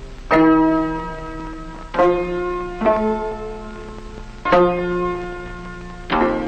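Background music: a slow melody of single plucked-string notes, five in all, each struck sharply and left to ring and fade.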